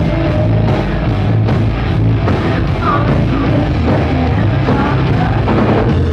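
Rock band playing live and loud, electric guitars, bass and drums, with a woman singing over them.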